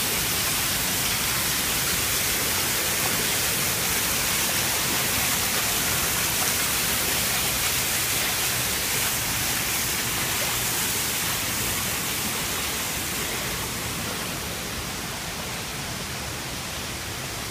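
Floodwater rushing through a flooded parking garage: a steady, hissing rush of water that eases slightly over the last few seconds.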